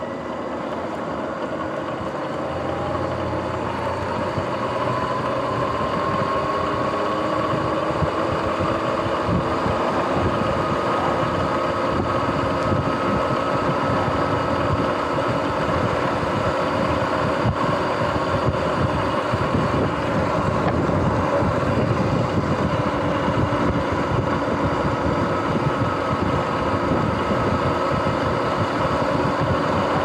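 Sur-Ron X electric dirt bike riding on pavement. The motor and drivetrain whine rises in pitch as it speeds up over the first several seconds, then holds steady under tyre and wind noise. The owner says its front hub and jackshaft bearings are going bad.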